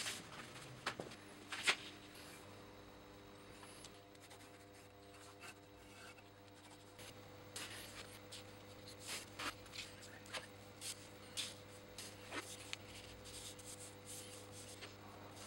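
Felt-tip marker drawing on paper, heard as short irregular scratching strokes from about seven seconds in, over a faint steady hum. A couple of sharp knocks sound in the first two seconds.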